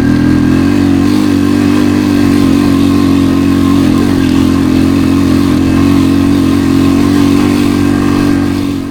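A small motor vehicle's engine, such as a motorbike or ATV, running loud and steady at an even speed. It starts and stops abruptly.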